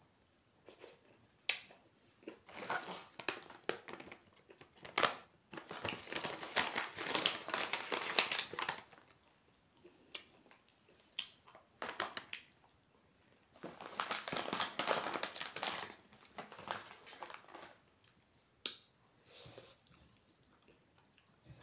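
Close-up eating sounds: crinkling and crackling in several stretches of two to three seconds as dry food is crumbled and handled with the fingers over a plate of rice. Short clicks and chewing come between the stretches.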